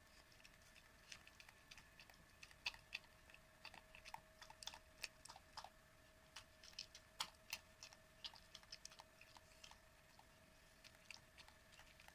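Old miniature dachshund eating homemade soup from a bowl: soft, irregular chewing clicks, several a second, over a faint steady hum.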